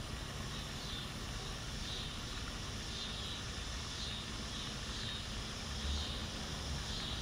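Dusk backyard ambience: a steady low rumble of distant traffic under insects calling in soft, high-pitched pulses that repeat about every half second.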